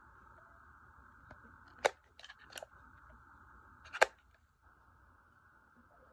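Sharp clicks and snaps from handling a camera and its packaging: one about two seconds in, a short cluster just after, and the loudest about four seconds in, over a faint steady hiss.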